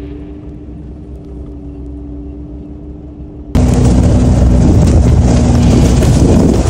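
Engine of the heavy machine running the Harley rake: a steady hum with a held whine at first, then about three and a half seconds in it jumps suddenly to a much louder, closer rumble.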